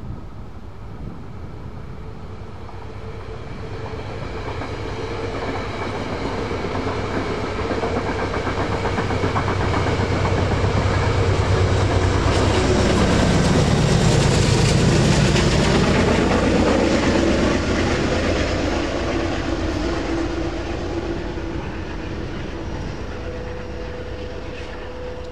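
A train passing by on the Hudson line: it grows steadily louder, is loudest a little past halfway, then fades as it moves away, its steady running tones dropping in pitch as it goes by.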